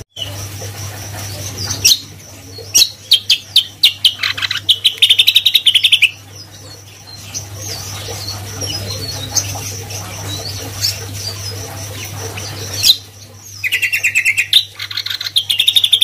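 Caged songbird singing: two loud bursts of rapid, fast-repeated trilling notes, one starting about two seconds in and one near the end, with softer scattered chirps between. A steady high whine and a low hum run underneath.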